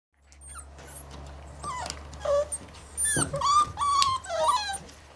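Puppies whining and yipping: a run of short high-pitched cries that bend up and down in pitch, several overlapping, starting about a quarter second in and loudest in the middle. A faint low hum lies underneath.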